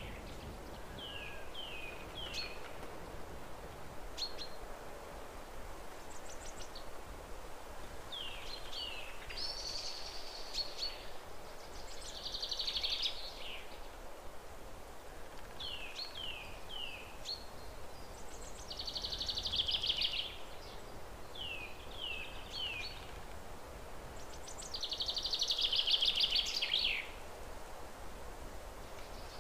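Birds singing over steady background noise. Groups of three short falling chirps alternate with longer, louder buzzy trills, the longest coming near the end.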